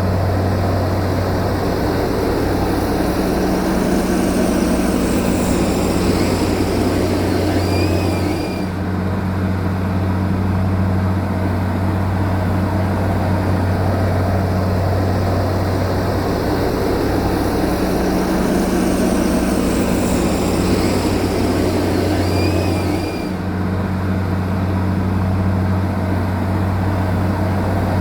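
Bulldozer's heavy diesel engine running steadily with a deep, even hum. The level dips briefly twice, about 9 and 23 seconds in.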